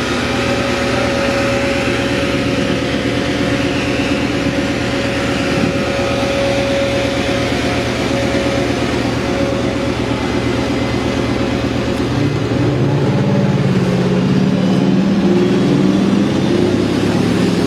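A London bus's diesel engine running close by with a steady throb. About two-thirds of the way through, the engine note rises in pitch and grows louder as it accelerates.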